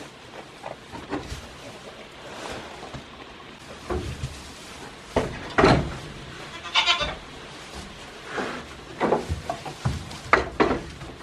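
Young goats bleating several times in short calls, the loudest about midway through and again near the end.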